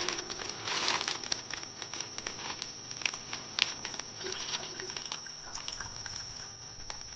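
Crinkling, rustling handling noises with scattered sharp clicks and taps, over a faint steady high-pitched whine.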